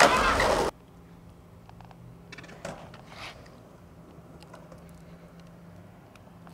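Skateboard wheels rolling on asphalt, a loud rush that cuts off abruptly in under a second. After that, quiet camcorder background with a faint low hum and a few faint handling ticks.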